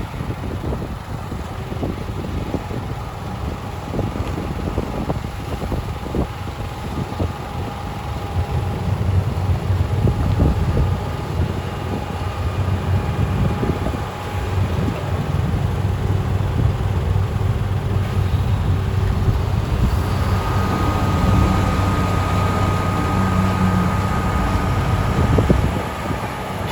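Heavy snow-removal machinery, the diesel engines of dump trucks and a rotary snowplow, running steadily with a low rumble that grows louder about a third of the way in, with wind noise on the microphone.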